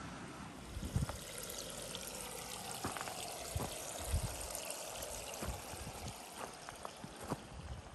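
Water pouring and trickling steadily through a newly laid curtain drain during a flow test with a garden hose at full blast, with a few light knocks.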